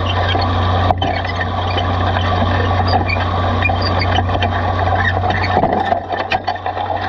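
Cockshutt 1850 tractor engine running steadily under load while pulling a moldboard plow through sod, heard from the plow itself, with soil scraping over the bottoms. The plow frame gives a sharp knock about a second in and several rattling knocks near the end.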